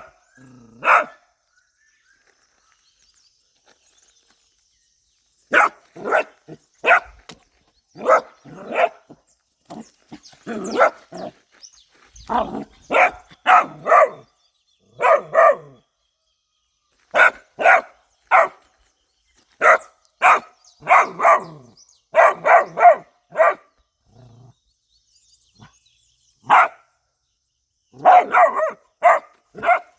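A dog barking in short, sharp barks at play, coming in clusters of two to four, with a few seconds' pause after the first barks and a quick run of barks near the end.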